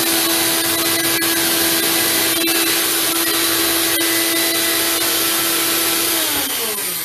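Small countertop blender running at a steady speed with a loud, even motor whine. About six seconds in the motor is switched off, and its pitch falls as it spins down.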